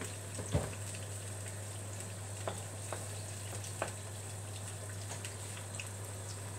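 Tomato passata with garlic and oil simmering and sizzling steadily in a frying pan on a gas burner, with a few short clicks of a wooden spoon against the pan.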